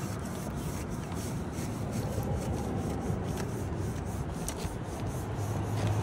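Stiff-bristled brush on an extension pole scrubbing the glass face of a solar panel, a steady back-and-forth rubbing.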